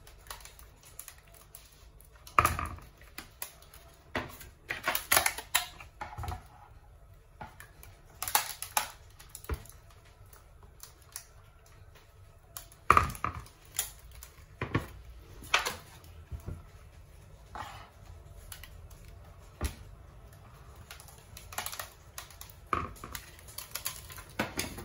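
Irregular clicks and knocks of a plastic ladle against a plastic mixing bowl and aluminium foil trays as liquid custard is ladled into the trays, with two louder knocks, one about two and a half seconds in and one about thirteen seconds in.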